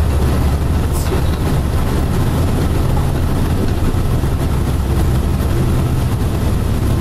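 A Hakodate streetcar running along its track, heard from inside the car: a steady low rumble and motor hum that shifts a little about two seconds in, with a light click about a second in.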